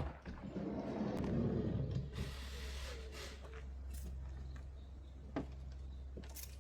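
Campervan being opened up, likely its pop-top roof being raised: a sharp latch click at the start, then rustling and a brief hiss, with another small click later.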